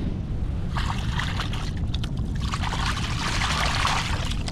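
Hands splashing and swishing in a shallow rock pool, rinsing dirty hands, louder from about halfway through. A steady low wind rumble on the microphone runs underneath.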